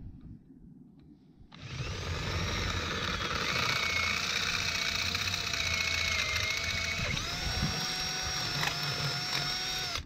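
Cordless drill running at speed as a larger bit drills a hole through the wall of a well casing. It starts about a second and a half in as a steady high whine, and its pitch shifts up slightly about seven seconds in.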